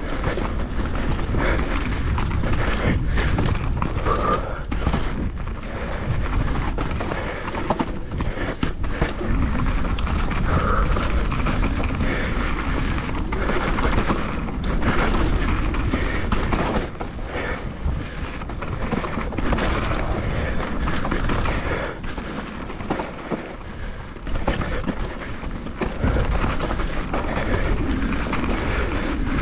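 Mountain bike ridden fast down a rough dirt bike-park trail: tyre noise and a constant clatter of the bike rattling over bumps, with many sharp knocks, and wind rumbling on the microphone.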